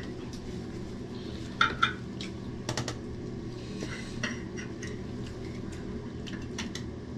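Light clicks and knocks of tableware and food containers during a meal eaten at a table, a pair of sharp clicks about a second and a half in and a few more around three seconds in, over a steady low hum.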